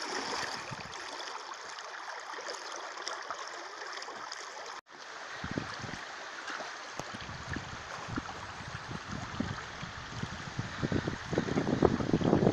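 Shallow river running over stones, a steady rushing of water. Just before five seconds in the sound breaks off and resumes, with low rumbles of wind on the microphone coming and going over the water.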